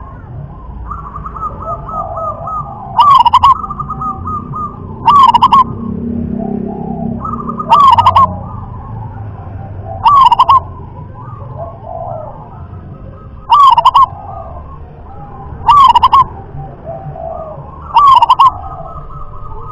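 Local-strain zebra dove (perkutut) singing its cooing song. Loud short phrases of quick staccato coos repeat about every two to three seconds, seven times, with fainter rolling trills between the phrases.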